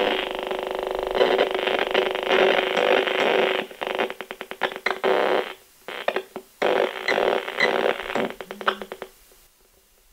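RF radiation meter's speaker giving a loud screeching buzz as a cell phone beside it connects to the tower, the meter's audio signalling its highest radiation reading. About three and a half seconds in, the sound breaks into rapid stuttering pulses, and it stops about nine seconds in.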